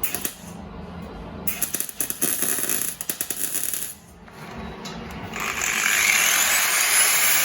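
Power-tool metalwork on a steel exhaust pipe: a stretch of fast rattling crackle, then, about two-thirds of the way through, a louder steady grinding hiss sets in and keeps going.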